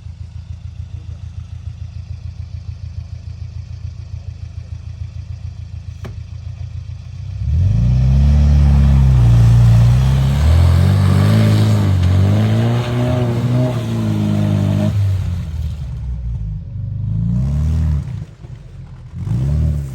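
UAZ off-road vehicle's engine idling with an even low pulse, then revving hard about seven seconds in, its pitch rising and falling repeatedly under load in mud, easing off and revving again briefly twice near the end.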